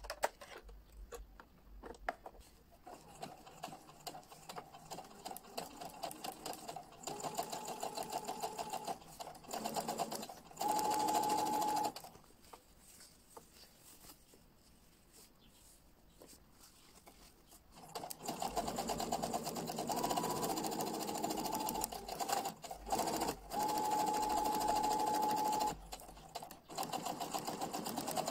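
Electric domestic sewing machine stitching a narrow rolled hem with a 4 mm rolled-hem foot, in two spells several seconds apart. Near the end of each spell the motor settles into a steady high hum at full speed. A few light clicks in the first seconds come as the presser foot is fitted.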